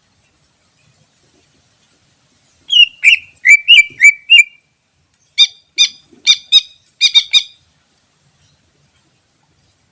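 Green leafbird (cucak ijo) singing: a quick phrase of bending whistled notes starting about three seconds in, then a run of about eight sharp, clipped notes.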